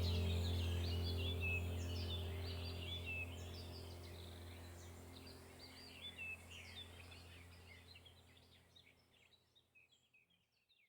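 A steady low drone with many short bird chirps over it, both fading out slowly to near silence near the end.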